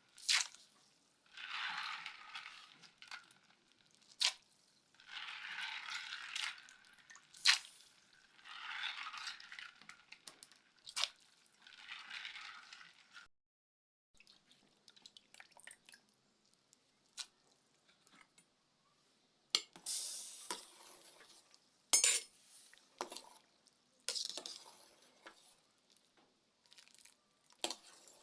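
Maize and beans being stirred together in water in a cooking pot: repeated swishing strokes about every two seconds, with sharp clinks of the spoon against the pot. After a short break about halfway through come sparser clinks and splashes.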